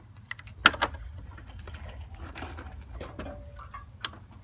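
Motorcycle ignition key on a plastic fob being fitted into the ignition switch and turned: a few sharp metallic clicks and rattles, the loudest a little under a second in and another near the end. The engine is not running.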